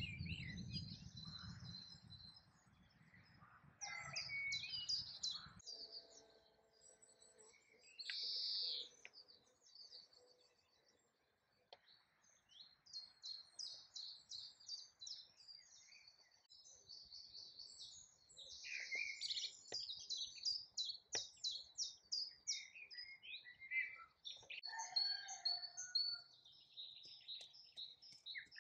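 Songbirds singing, several overlapping series of high chirps and trills following one another throughout, with a low rumble under them for the first five seconds or so.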